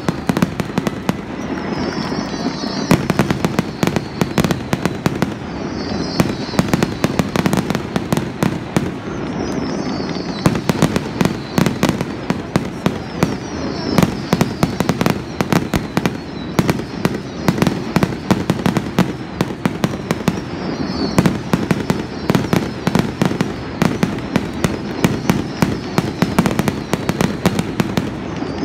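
Fireworks grand finale: a rapid, unbroken barrage of bangs and crackles from many shells bursting at once.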